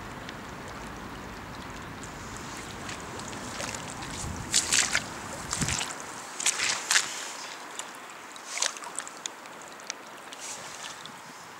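Floodwater rushing across a paved footpath in a shallow, fast stream, with several louder splashing bursts between about four and nine seconds in. A low wind rumble on the microphone stops about halfway.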